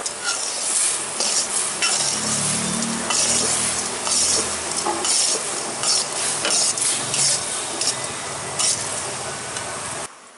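Jaggery syrup boiling hard in a metal pan, bubbling and crackling steadily, while a metal ladle stirs and scrapes through it. The sound cuts off suddenly just before the end.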